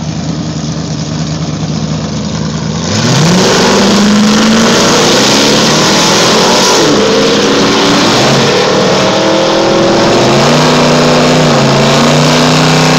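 Engines of a 1969 Plymouth and a 1974 Plymouth 'Cuda held at a steady rumble on the drag-strip start line, then launching about three seconds in. Loud engine revs climb in pitch, drop back at each gear change, and climb again as the cars run down the track.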